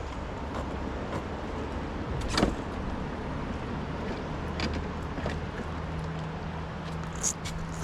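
A small motor running steadily with a low hum, with a few short knocks and clicks over it, the loudest about two and a half seconds in.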